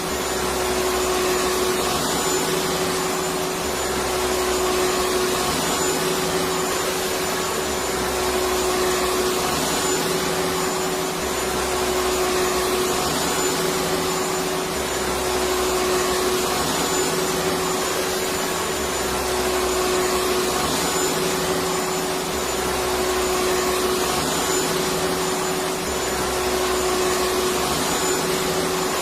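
Electric vacuum cleaner running continuously: a steady motor hum over rushing air, with a faint low pulse about every two seconds.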